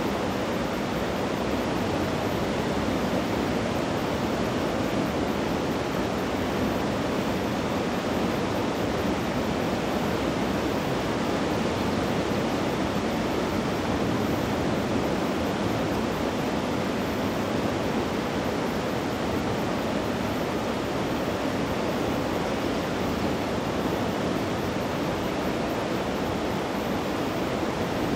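Steady, unchanging rush of a river in flood, a constant full-bodied roar of fast brown water.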